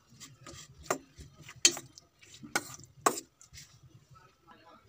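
Metal spoon stirring marinated chicken and vegetables in a stainless steel bowl, with several sharp clinks of the spoon against the bowl, the loudest about one and a half seconds in.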